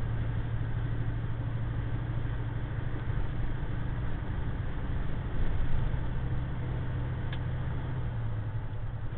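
Heavily loaded tractor-trailer's diesel engine pulling steadily up a grade under load, a steady low drone with road noise.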